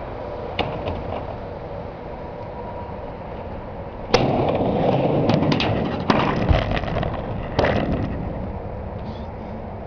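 Skateboard riding a mini ramp: wheels rolling steadily, then a sharp clack about four seconds in, followed by louder rolling and several more knocks of the board on the ramp until about eight seconds in.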